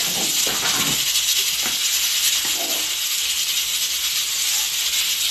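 Steady sizzling hiss of garlic frying in oil in a pot on a gas stove.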